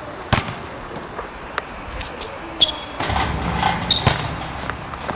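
A basketball bouncing several separate times on a court, some hits leaving a brief high ring. A low rumble joins about three seconds in.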